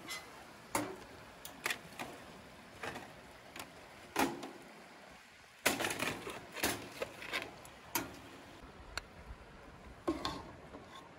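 Irregular clanks and clicks of metal camp-cooking gear: the sheet-metal door of a folding camp oven, tongs gripping and lifting a foil baking pan, and a utensil against an enamel bowl. The clatter comes thickest about halfway through.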